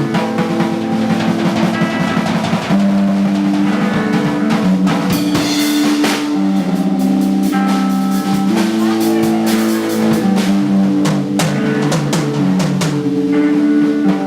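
Live band music: a drum kit playing under sustained guitar and bass notes.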